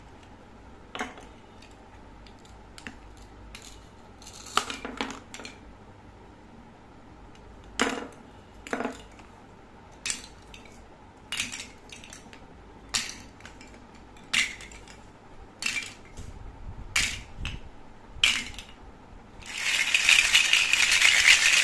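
Hollow plastic toy fruit pieces clacking as they are dropped one at a time into a wicker basket, a sharp clack every second or so. About two seconds before the end, the full basket is shaken and the pieces rattle together loudly.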